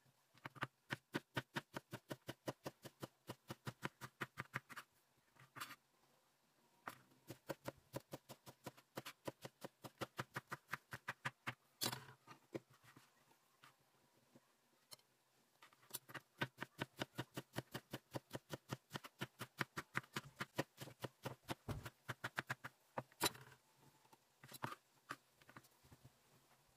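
Knife chopping vegetables on a cutting board in quick, even strokes about five a second, in several long runs with short pauses between them.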